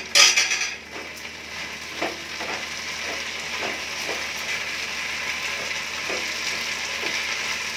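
Stir-fry sizzling in a pan of sauced onion, capsicum and fried paneer cubes, loudest in the first moment, then steady. A wooden spatula scrapes and tosses through it every second or so.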